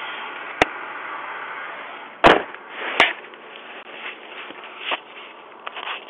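Handling noise picked up by a Ring video doorbell's own microphone as the torn-off doorbell is carried in a hand and set down in a car: several sharp knocks and thumps, the loudest a little after two seconds in, over a steady hiss.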